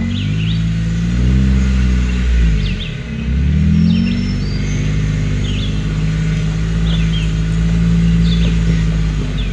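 Off-road vehicle's engine running under changing throttle, its pitch rising and falling and dropping briefly about three seconds in, then holding steady.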